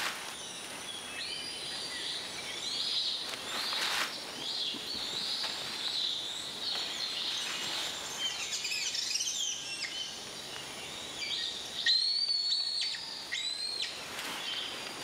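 Amazon rainforest ambience: many birds calling and chirping over a steady insect hum. A louder run of sharp, high whistled calls comes about twelve seconds in.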